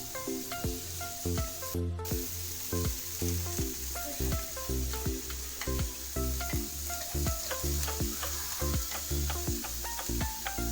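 Background music with a steady beat and plucked melody notes, over a steady hiss of food frying in a pan.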